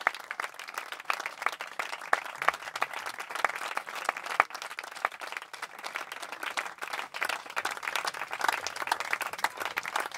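A small seated audience applauding, with individual hand claps standing out in a dense, steady patter.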